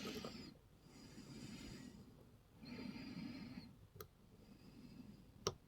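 Soft breathing close to the microphone, with two short sharp clicks, about four and five and a half seconds in, from the pick working the pins of an American 1100 padlock.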